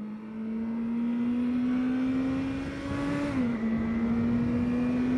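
Honda CBR650R's inline-four engine pulling under acceleration, its pitch climbing steadily, then dropping with an upshift a little over three seconds in and climbing again, over a rush of wind noise.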